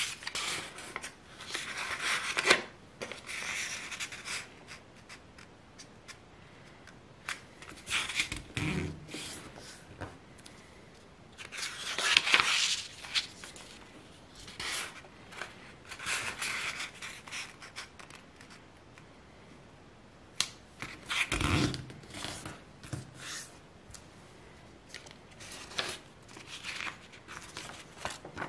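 A sheet of printer-weight paper rustling and crackling as hands fold it and run along the creases, in bursts of a second or two with short pauses. Two soft low thumps come about nine seconds in and again after twenty seconds.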